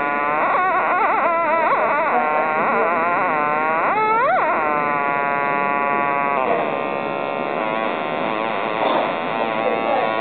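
Breadboarded 555-timer and op-amp synthesizer circuit sounding a buzzy pitched tone that bends and wobbles in pitch, with a quick swoop up and back down about four seconds in. A little past six seconds it changes to a denser, rougher buzz.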